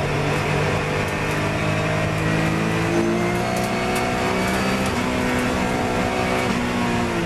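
Porsche 997 GT3 Cup's flat-six engine heard from inside the cockpit, accelerating hard with its pitch climbing. There is an upshift about three seconds in, over steady road and tyre noise.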